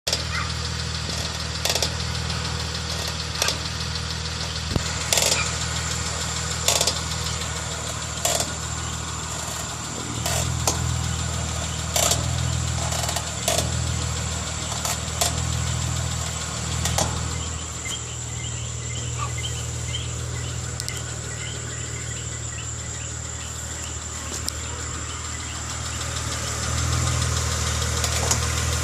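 A 2005 Acura RL's V6 idling steadily, with short sharp knocks that come about every second and a half to two seconds at first and more irregularly later. The knocks are the noise the owner is asking about, which he takes for a brake noise.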